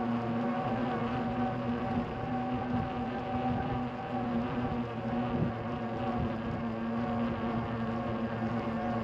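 A steady low hum with an even stack of overtones, like a small motor or electrical equipment, over a light background rush.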